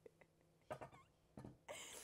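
Near silence, broken by a few faint clicks and a short scrape near the end as a small knife cuts around the seed cavity of a raw kabocha squash.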